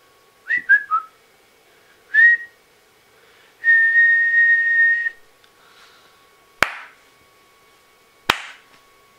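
A person whistling: three quick falling notes, a short note, then one long steady whistled note. Two sharp hand claps follow near the end, under two seconds apart.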